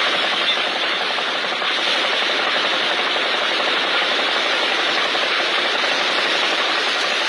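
Small wooden fishing boat's engine running steadily while the boat is under way at sea.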